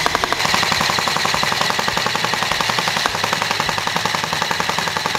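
Airsoft gun firing full-auto in one long, unbroken burst: a fast, even rattle of shots.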